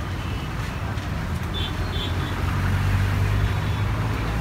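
Road traffic: a vehicle engine running close by with a steady low hum that grows louder about halfway through, as if passing. Two short high chirps sound about a second and a half in.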